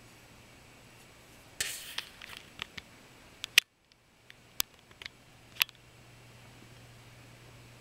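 Camera handling noise: a short rustle followed by a few sharp isolated clicks as the camera is adjusted and zoomed in, over a faint steady low hum. The sound cuts out completely for a split second near the middle.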